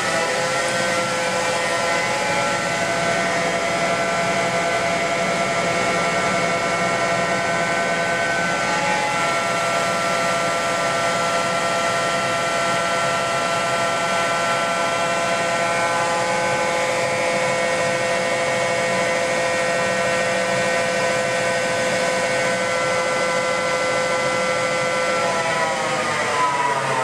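Hankook VTC 85R CNC vertical borer's 800 mm chuck spinning on its spindle drive: a steady whine of several tones. It reaches speed just after the start, then falls in pitch as the spindle slows down near the end.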